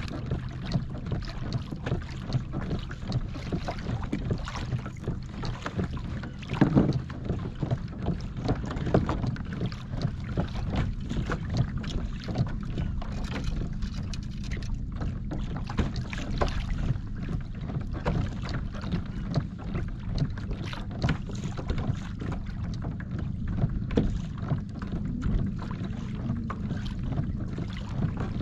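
Boat running at trolling speed: a steady low motor hum with water slapping against the hull and wind on the microphone, and a single louder thump about seven seconds in.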